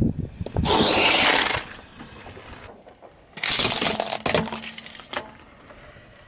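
Car tyre rolling over and crushing plastic objects: a loud crush lasting about a second near the start, then about three and a half seconds in a second round of plastic cracking and snapping as a plastic toy car breaks apart under the wheel.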